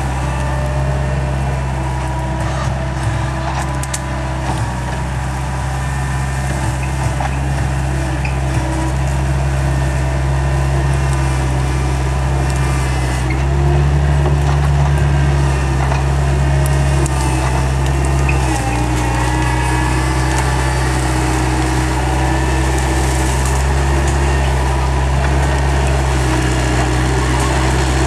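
Skid steer engine running steadily under load as the grapple root rake pushes through brush, with branches snapping and crackling. The engine works harder for a few seconds about halfway through.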